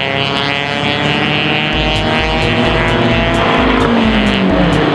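Race car engines running hard as cars pass on a track, their pitch sliding down near the end. A steady low beat, about two a second, joins about two seconds in.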